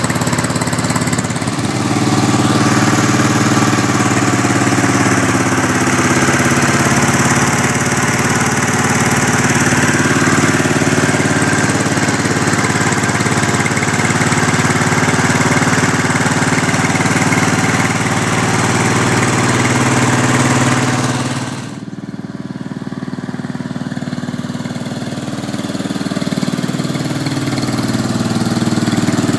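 Briggs & Stratton 20 hp OHV V-twin engine of a lawn tractor running loud through a homemade dual exhaust of old lawnmower mufflers. It revs up a second or so in, holds a high speed, drops back suddenly about 22 seconds in, then climbs again near the end. The owner suspects its two cylinders are not firing equally.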